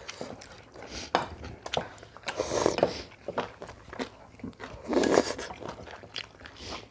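Close-up eating sounds of steamed squid with bean sprouts and rice: chewing and crunching with scattered light clicks, and two louder crunchy bursts about two and a half and five seconds in.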